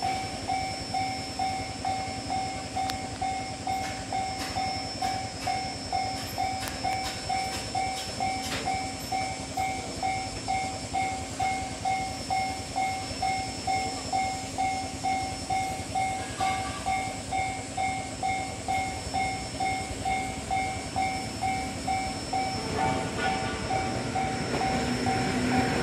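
Railway level-crossing warning bell ringing steadily at about two strokes a second, signalling an approaching train. In the last few seconds the running noise of a JR West 105 series electric train grows louder as it draws near.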